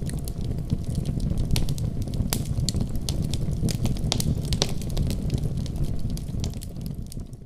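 Wood fire crackling in a fireplace: a steady low rumble of the flames with frequent sharp pops and snaps, fading down near the end.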